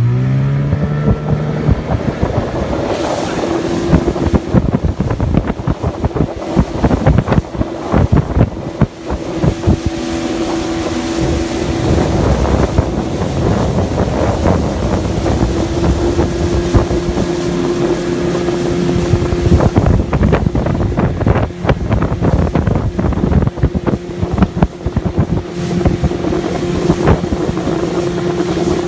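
Motorboat engine picking up speed as the boat gets under way, then running steadily at speed, with wind buffeting the microphone.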